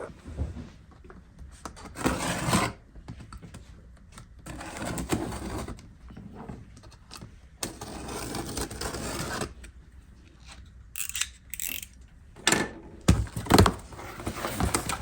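A shipping box being opened and unpacked by hand: repeated scraping and rustling of cardboard and packing material, with several sharp knocks as items are handled about three-quarters of the way through.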